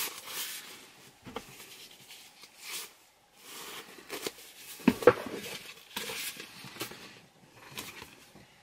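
Rustling and short clicks from a folded umbrella and its plastic wrapping being handled, with a sharper knock about five seconds in.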